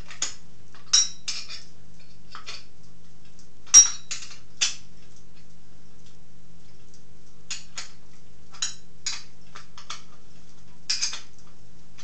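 Wrench and bolt clinking against the metal of the Dunlap lathe as a headstock bolt is snugged down: scattered sharp metallic clinks, the loudest about four seconds in.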